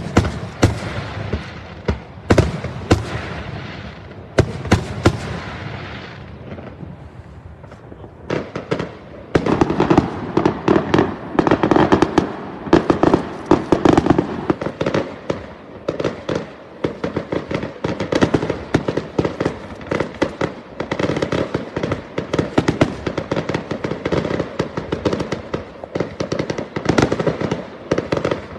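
Fireworks display: for the first several seconds aerial shells burst with separate sharp bangs. From about nine seconds in, a dense, rapid crackle of many small reports runs on without a break.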